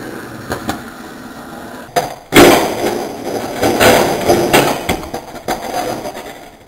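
Skateboard wheels rolling on concrete, then a sharp smack of the board on a low homemade box about two seconds in. After that comes several seconds of clattering and scraping from a failed back nose grind attempt, dying away near the end.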